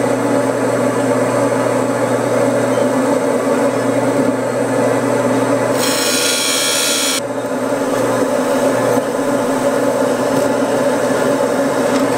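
Nippy leather skiving machine running with a steady motor hum. About six seconds in, a piece of leather is fed through its bell knife for just over a second, adding a short scraping hiss.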